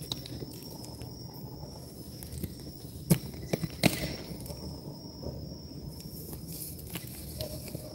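Steady high insect chirring, likely crickets, over a low background rumble, with a few sharp clicks or knocks, the loudest about three and four seconds in.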